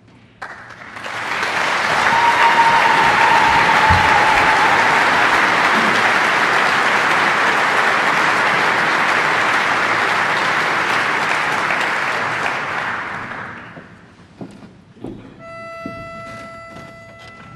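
Audience applauding for about thirteen seconds, with a held whistle through it about two seconds in. Near the end a pitch pipe sounds one steady note for about two seconds, giving the barbershop chorus its starting pitch for the next song.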